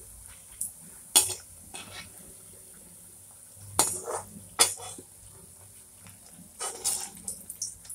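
Round pieces of bread deep-frying in hot oil in a kadhai, the oil sizzling steadily. A steel slotted skimmer clinks and scrapes against the pan several times, loudest about a second in, around four seconds in and near seven seconds.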